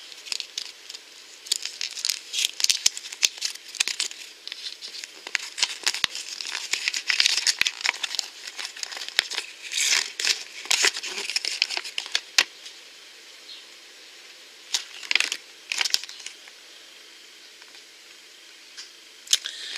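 A folded paper checklist being unfolded and handled, crinkling and rustling in quick bursts for the first dozen seconds, then only a few brief rustles.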